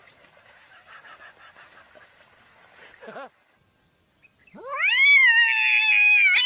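Faint splashing of water for about three seconds, then a short pause, then a cat's single long, loud yowl that swoops up quickly and holds.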